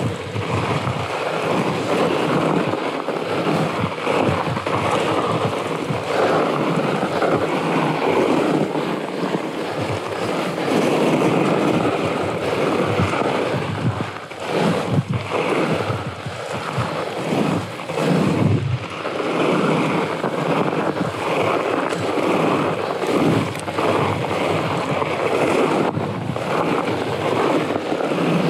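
Wind buffeting the action-camera microphone over the rumble of a Rocky Mountain Blizzard fat bike's wide knobby tyres rolling on a packed-snow trail, with irregular bumps and rattles.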